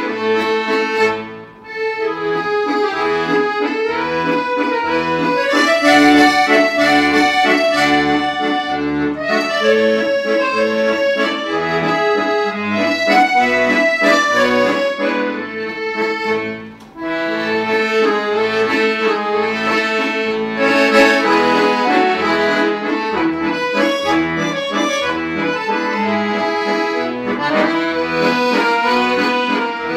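Instrumental background music: a sustained melody over a pulsing bass line, breaking off briefly about one and a half seconds in and again about seventeen seconds in.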